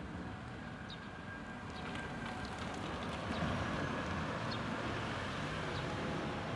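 Outdoor traffic noise: a motor vehicle passing, its rumble growing louder about three seconds in, with a few faint high chirps.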